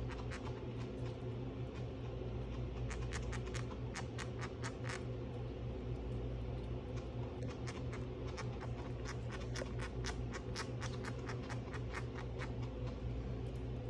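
Chinchilla chewing a piece of banana: a rapid run of small, crisp clicks from its teeth, several a second, pausing briefly now and then.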